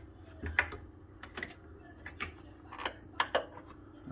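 About eight sharp, irregular clicks and taps of a Phillips screwdriver and metal parts being worked on a microwave's top vent panel while its screws are taken out.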